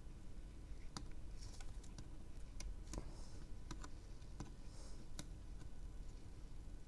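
Faint soldering sounds as a protection-circuit board is soldered onto an 18650 lithium battery: scattered light clicks and a few brief soft hisses of flux sizzling under the iron.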